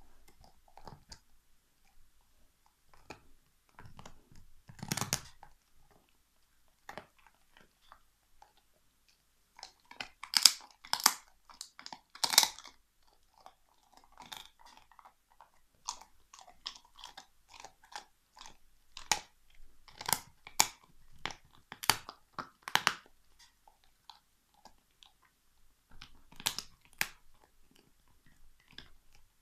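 Alaskan Malamute chewing a big turkey bone: irregular sharp crunches and cracks of bone between his teeth, coming in bursts with quieter gnawing between. The loudest bursts come about a third of the way in and again about two-thirds through.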